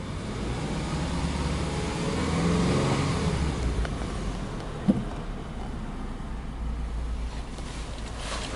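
Subaru Legacy Touring Wagon 2.0i's EJ20 flat-four engine idling in Park, heard from inside the cabin, given one light rev about a second in that climbs and falls back to idle by about three and a half seconds. A single short knock about five seconds in.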